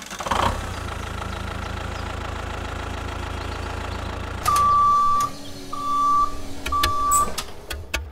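Tractor engine running steadily with a low rumble, then three loud electronic beeps at one pitch, each about half a second long: a reversing warning as the tractor backs up to its trailer hitch.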